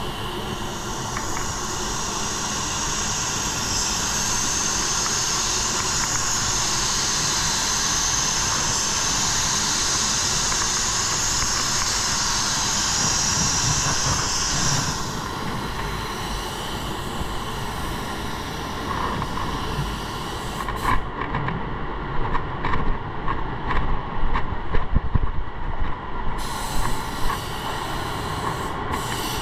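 Automotive paint spray gun hissing steadily while laying down base coat, stopping about halfway through, over a steady background drone. Scattered knocks and clicks follow in the last third.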